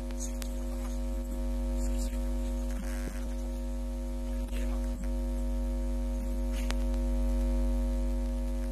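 Steady electrical mains hum from the microphone sound system: a low drone with a few fixed tones above it, unchanging throughout, with faint knocks and rustles now and then.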